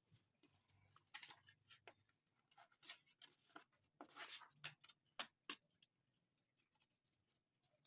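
Faint handling noise: scattered short rustles and scrapes with a few sharp clicks, the loudest two clicks coming close together about five seconds in.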